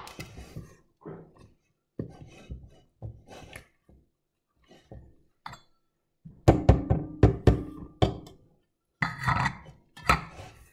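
A spatula scrapes and folds thick batter in a stainless steel mixing bowl. About six seconds in come a quick run of sharp knocks on the steel bowl, which rings, and more clatter follows near the end.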